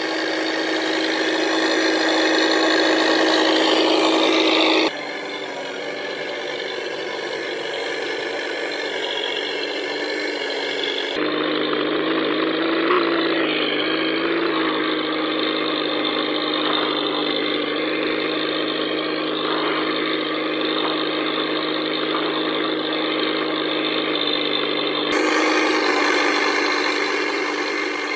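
Simulated V8 engine sound from an RC truck's electronic sound unit, a steady low idle-like hum with a brief rise in pitch about halfway through. The tone changes abruptly a few times where the recording is cut.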